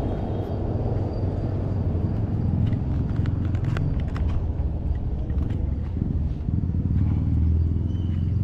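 Steady low rumble of a vehicle running along a road, with a van passing close alongside.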